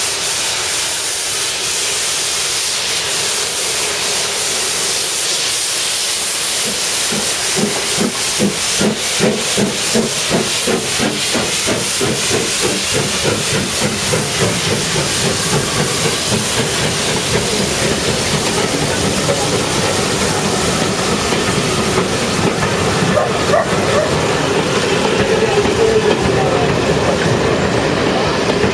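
Stanier 8F steam locomotive 48151 hissing steam, then pulling away with its train: rhythmic exhaust beats start about seven seconds in. Near the end the coaches' wheels clatter over the rail joints as they pass close by.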